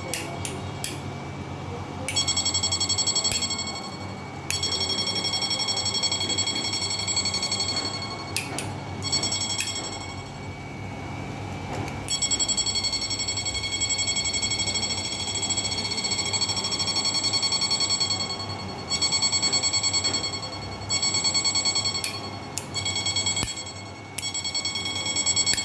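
Electric fish-shocking inverter running under load, giving a high-pitched electronic whine that cuts in and out every few seconds as its timer pulses the output. Sharp clicks come at many of the switchovers.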